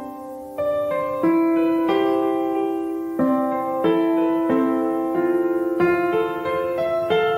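Background piano music: slow, gentle notes and chords, a new one struck about once a second and left to ring.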